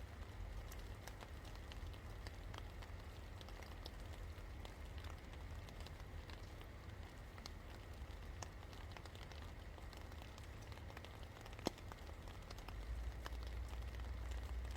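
Steady rain falling, with many individual drops ticking sharply on a hard surface and one louder drop about three-quarters of the way through. A low rumble sits underneath and grows a little near the end.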